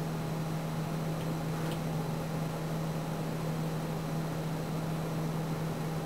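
Steady low hum and even hiss of room tone, with a faint tick or two around a second and a half in.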